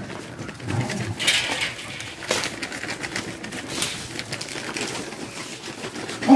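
Dogs growling low at each other as they squabble over food.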